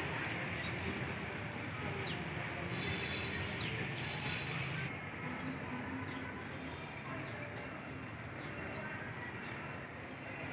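Birds chirping in short, high, downward-sliding notes, repeated many times over a steady outdoor background noise. The background drops slightly about five seconds in.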